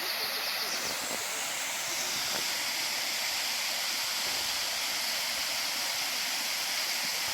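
Waterfall rushing in a steady hiss of falling water.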